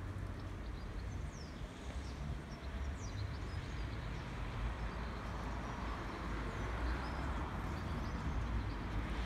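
Outdoor street background: a steady low rumble of traffic, with a few short, high bird chirps, mostly in the first half.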